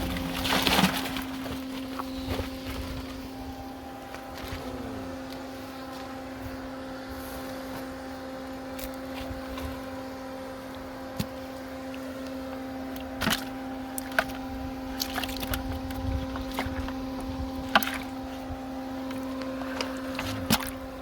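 A steady, even motor hum with a fixed pitch, broken by scattered sharp clicks and knocks.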